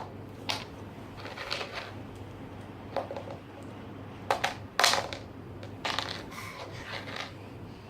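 Irregular clicks and knocks of small objects being handled: about eight sharp taps spread unevenly, the loudest a little before and about five seconds in.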